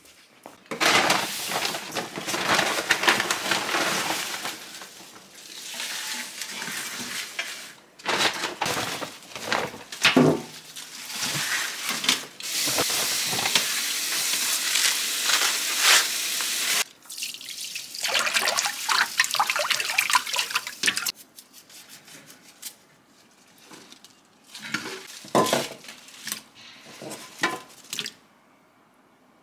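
Tap water running into a stainless steel basin of young radishes and splashing as they are rinsed by hand, in several bursts with one longer steady run of water in the middle. Near the end only a few short splashes remain.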